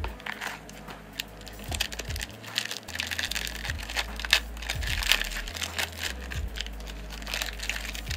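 Foil wrapper of a 1994 Finish Line racing card pack crinkling as it is handled and opened by hand, a dense run of irregular crackles and rustles that is busiest in the middle.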